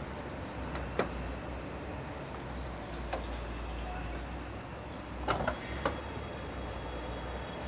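Toyota Land Cruiser's side door being unlatched and opened: a sharp click about a second in, another around three seconds, and a short run of latch clicks and knocks around five to six seconds, over a steady low background hum.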